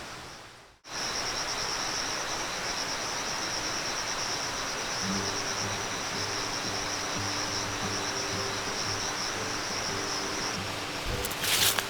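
Steady high-pitched drone of a summer insect chorus. From about five seconds in a low, unsteady hum joins underneath, and a short clatter comes near the end.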